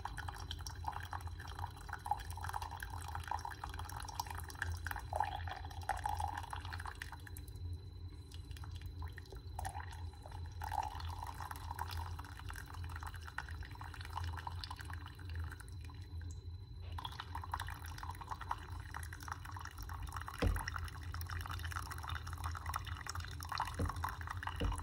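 A single-serve pod coffee maker brewing, with coffee trickling and dripping into a cup over a steady low hum from the machine.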